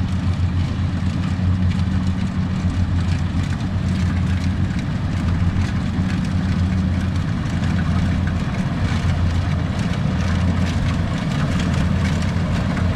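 Kubota DC70 combine harvester's diesel engine running with a steady low hum.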